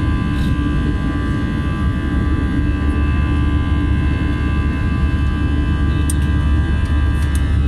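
Airliner cabin noise during the climb after takeoff: a steady, loud low rumble of engines and airflow with several steady whining tones over it.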